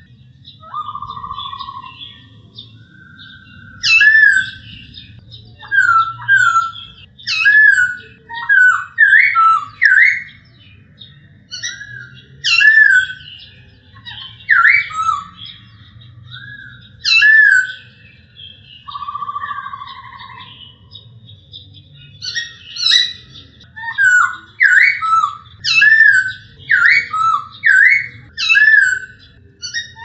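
Male black-throated laughingthrush (Poksay Hongkong) singing loud, clear whistled notes in short slurred phrases, repeated with brief pauses. Twice it gives a longer, lower drawn-out note: once about a second in, once near two-thirds through.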